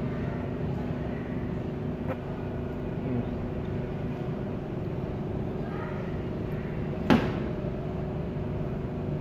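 Steady machine hum, a low drone with several held tones over a rumbling background. A single sharp knock about seven seconds in.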